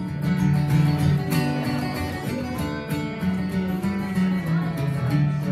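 Acoustic guitar strumming chords in a steady rhythm, with no voice: an instrumental break between sung verses.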